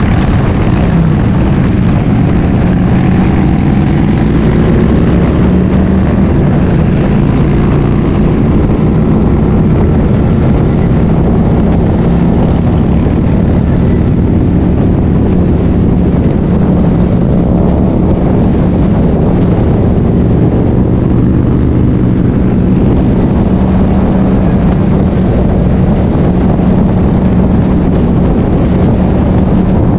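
Cruiser motorcycle engine running steadily at highway cruising speed, a constant low drone with wind rushing over the microphone.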